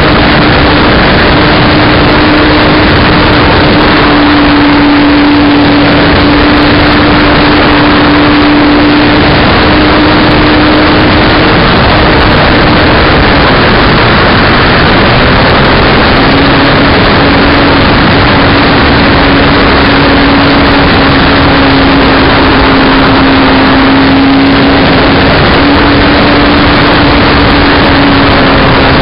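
Model aircraft's motor running with a steady drone, buried in loud rushing wind noise on its onboard camera's microphone. The tone fades out for a few seconds about halfway through, then comes back slightly lower.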